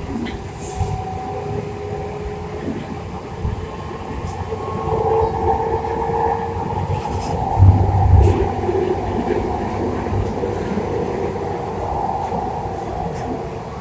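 San Diego Trolley light-rail car running, heard from inside through a phone's poor microphone: a steady rumble with humming tones, growing louder toward the middle, with two heavy low thumps about eight seconds in.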